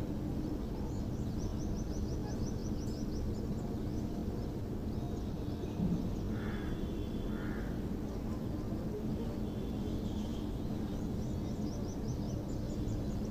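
Industrial sewing machine running with a steady low hum as the fabric is stitched, with faint high bird chirps now and then.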